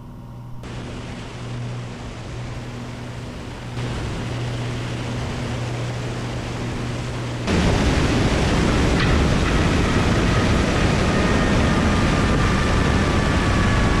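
Piper Cherokee Six's Lycoming six-cylinder engine running at low power as a steady hum during the landing. About seven and a half seconds in the sound changes abruptly to a loud, even rushing of wind and wheels rolling on the runway, heard from a camera outside on the wing.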